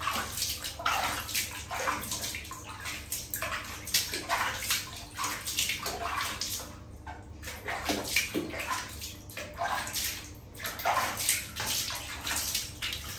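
Water splashing in irregular bursts as a hand scoops it from a plastic basin and pours it over a baby monkey, trickling back down onto a tiled floor.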